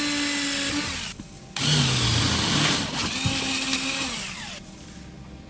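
Cordless drill drilling a hole through a car body panel. It runs for about a second, stops briefly, then runs again for about three seconds before stopping.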